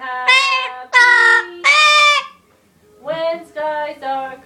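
A pet parrot singing in a high, human-like voice: a few long held notes, a short pause about two and a half seconds in, then several shorter notes.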